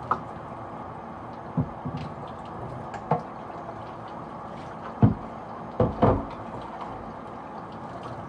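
Hard plastic humidifier parts knocking and clunking as they are handled, about seven separate knocks with the loudest about five and six seconds in, over a steady low hiss.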